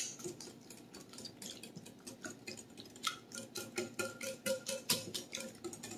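Wire whisk stirring a thick creamy mixture in a glass bowl, its wires ticking and clinking against the glass. The clicks are sparse at first, then from about two seconds in come quicker and more regular, some three or four a second.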